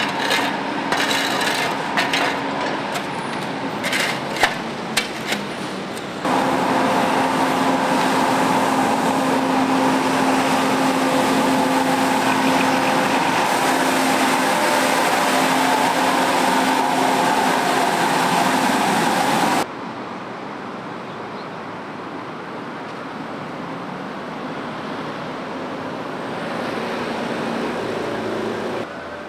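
A shovel scrapes and clicks on mud and asphalt. Then a street-sweeper truck runs loud and steady, with its rotary brushes going and a steady hum, for about thirteen seconds. It cuts off suddenly to quieter road traffic.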